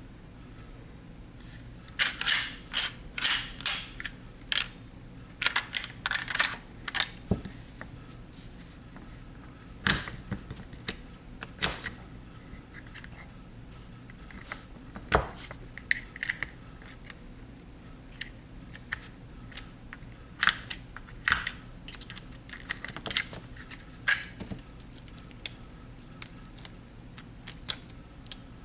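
Small metal pistol parts and tools being handled and set down on a work surface: irregular clicks, clinks and light rattles in short clusters.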